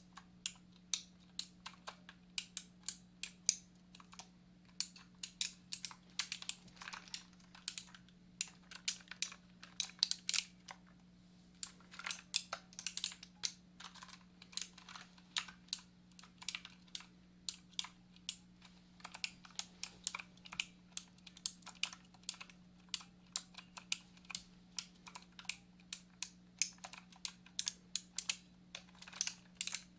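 Computer keyboard typing: irregular runs of sharp key clicks, several a second, with a short pause about eleven seconds in, over a faint steady low hum.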